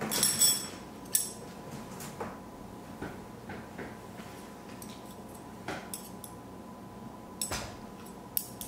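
Metal chopsticks and a ceramic plate clinking: a short ringing clink at the start, then scattered light taps and clicks, over a faint steady hum.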